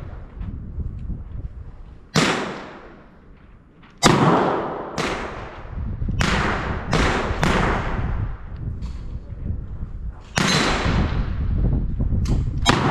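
.22 pistol firing single shots, about eight in all, at uneven gaps of half a second to three seconds. Each crack is followed by a ringing echo.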